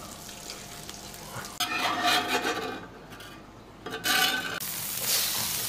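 Food sizzling on a hot tabletop barbecue grill, with utensils scraping and stirring. The sizzle turns louder and steady about four and a half seconds in.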